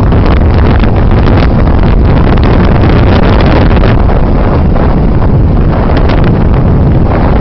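Loud, constant wind buffeting on the microphone of a camera carried on a moving motorbike, drowning out any engine sound.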